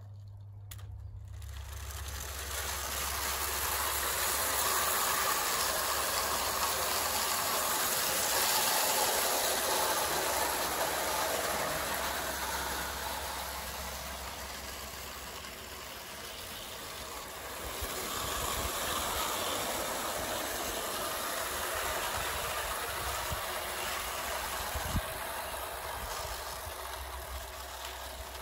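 Bassett-Lowke clockwork O gauge 4-4-0 Compound locomotive running with short tinplate coaches: the whirr of its clockwork motor and the rattle of tinplate wheels on the rails. It swells louder twice, with a single sharp click near the end.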